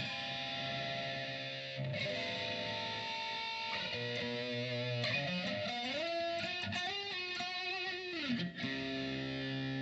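Distorted electric guitar played through a STRICH Twister analog flanger pedal: held chords, then a run of sliding notes in the middle, ending on a long held chord, coloured by the flanger's sweep.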